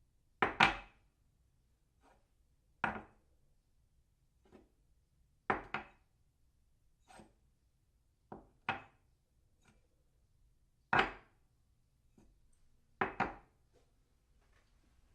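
A china cup set down on its saucer again and again: sharp clinks every two or three seconds, several of them doubled as the cup settles, with a short ring after each.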